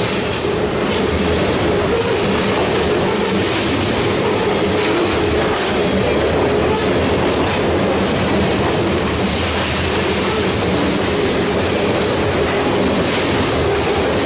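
Covered hopper cars of a freight train rolling briskly past: a steady, loud noise of steel wheels on the rails, with scattered clicks and a constant tone underneath.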